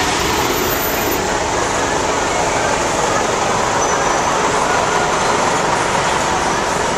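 Loud, steady city street noise: traffic with a faint murmur of voices, unchanging throughout.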